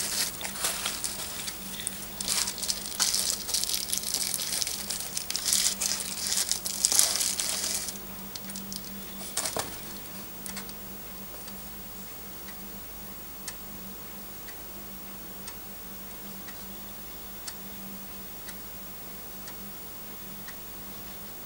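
Bubble wrap crinkling and rustling as a phone display is pulled out of it by hand. The crinkling stops about eight seconds in. After that there is only quiet handling, with a clock ticking about once a second over a low steady hum.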